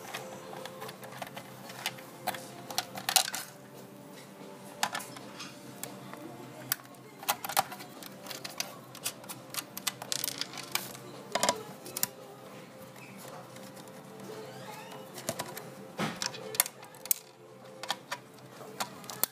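Irregular sharp metallic clicks and taps of a nut spinner working loose the small nuts that hold a cooling fan to an induction hob's power board.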